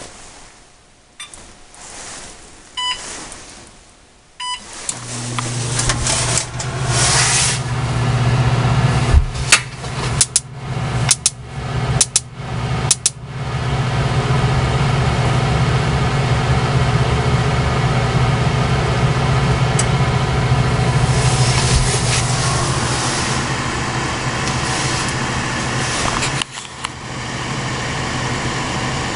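Short electronic keypad beeps from a KitchenAid gas range's control panel as the bake is set. About five seconds in, a steady low hum starts and runs on, with a run of five sharp, evenly spaced clicks a few seconds later. The bake burner does not light.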